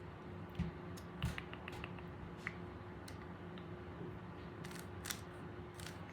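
Rubik's Cube being turned by hand: irregular short clicks and clacks of the plastic layers rotating, over a faint steady hum.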